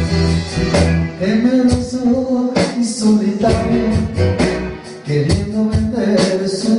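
A live rock band playing: male voice singing over electric guitar, electric bass, keyboard and an electronic drum kit keeping a steady beat.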